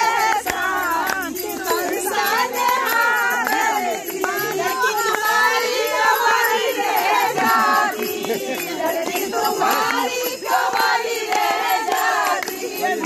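A crowd of women singing and chattering together, many voices overlapping at once.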